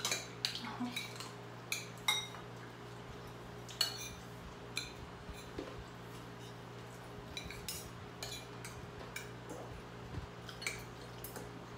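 Forks and spoons clinking on plates during a meal: short, light clinks at irregular intervals, often a second or so apart.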